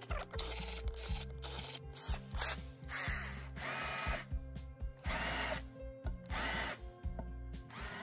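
A 12 V cordless drill boring small holes in a plastic tank lid, run in short bursts several times, spinning up and stopping between holes, to widen the opening for a water-level sender.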